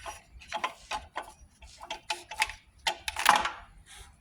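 Irregular metallic clicks and knocks from hand tools and engine parts as the water pump drive belt and its tensioner are worked off the engine, with a louder rattle about three seconds in.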